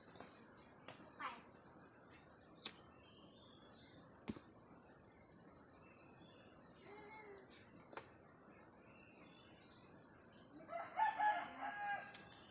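Insects chirring steadily in a high, pulsing drone, with a few sharp clicks, the loudest about three seconds in. Near the end a rooster crows once, the loudest sound.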